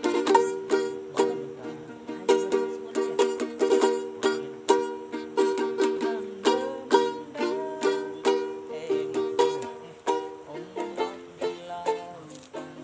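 Music played on a plucked string instrument, ukulele-like, with quick picked notes in a steady rhythm.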